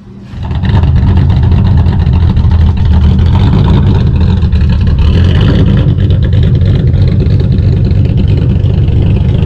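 1969 Ford Mustang Boss 302's 302 V8 running loudly with a low exhaust note as the car drives away, starting abruptly about half a second in.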